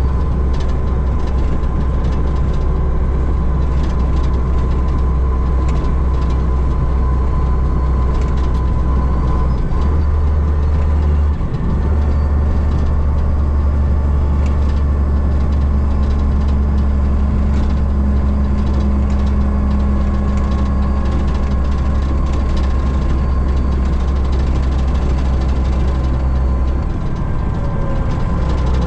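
Heavy dump truck's diesel engine running steadily at road speed, a deep drone heard from inside the cab, with a brief dip about eleven seconds in and another near the end.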